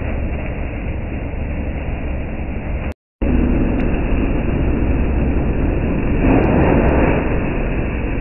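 Coconut fronds being shredded in a PTO-driven shredder-pulverizer run off a Kubota MU5502's 50 hp four-cylinder diesel, engine held at about 1900 rpm for 540 rpm PTO: a steady, loud machine noise. It breaks off for a moment about three seconds in and grows louder between about six and seven seconds in as more frond goes through.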